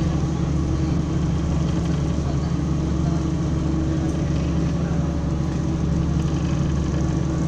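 Engine of a lake passenger boat running at a steady cruise, a low even hum, with water rushing past the hull.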